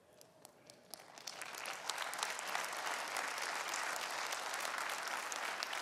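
Church congregation applauding. It starts from near quiet, swells over the first second or two into steady clapping, and holds.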